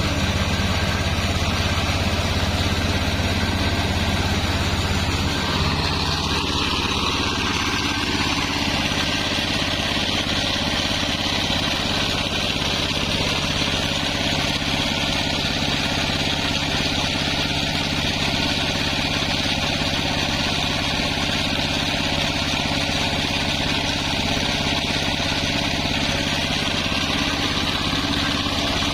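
Sawmill machinery running steadily, a motor-driven circular saw rig with a constant mechanical hum; the pitch of its low drone shifts about six seconds in.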